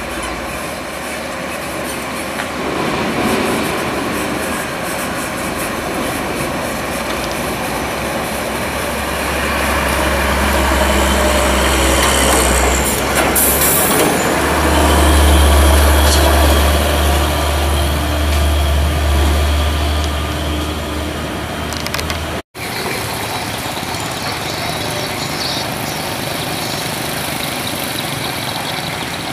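Loaded diesel log trucks running past on a rough dirt road, the engines rumbling deep and the timber-laden bodies rattling and clanking; the loudest, closest pass swells in the middle. About three quarters of the way through the sound cuts off for an instant, then a steadier engine noise carries on.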